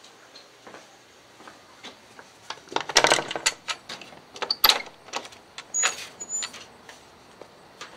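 Back screen door being unlatched and pushed open: a quick run of clicks, knocks and rattles, loudest about three seconds in, with another sharp knock a little later.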